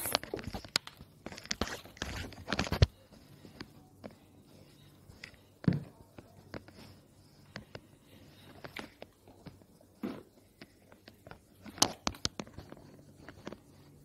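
Rustling and handling noise for the first few seconds, then a marker writing on a whiteboard: scattered light taps and short scrapes.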